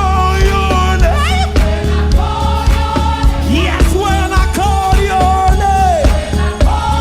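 Gospel praise music from a church worship band: singers holding long notes with vibrato over bass and a steady drum beat.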